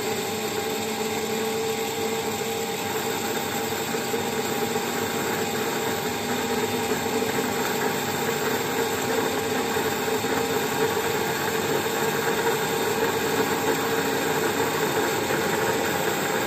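Aircraft vertical gyro's electric spin motor running at about 21,000 RPM, its operating speed for holding level. It makes a steady whine of several tones over a hiss, growing slightly louder about six seconds in.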